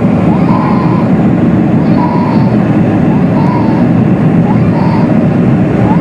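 Steady, loud engine and airflow noise of a Boeing 747-400 climbing out at take-off power, heard from inside the passenger cabin. A short, high, voice-like call repeats faintly over it about every second and a half.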